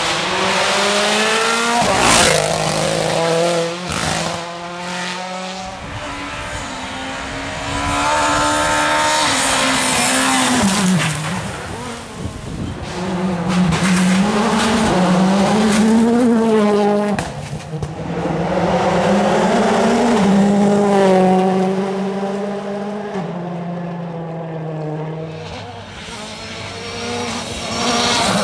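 World Rally Cars' turbocharged engines revving hard through gear changes on a tarmac stage, one car after another. The pitch repeatedly climbs and drops, with a few sharp cracks, and each car grows louder and then fades as it passes.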